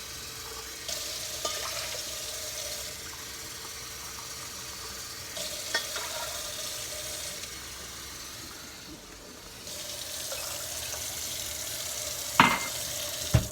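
Kitchen tap running water into a container, measuring out water for a cornmeal crust. Two sharp knocks come near the end.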